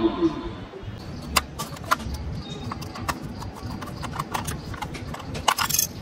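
Small plastic clicks and taps as a screwdriver works the battery-cover screw of a plastic RC car remote controller and the cover is taken off, with a louder clatter near the end. A wavering electronic tune from the ride-on car's dashboard cuts off just after the start.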